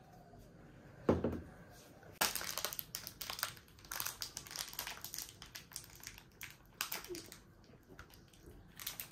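A dull thump about a second in, then several seconds of quick, irregular crinkling and rustling, as of something being handled.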